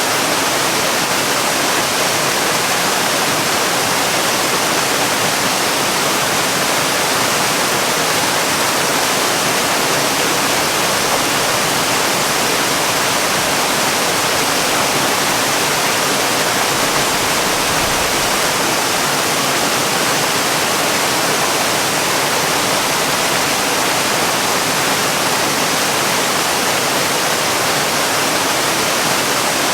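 Waterfall pouring: a steady, even rush of falling water with no breaks or changes.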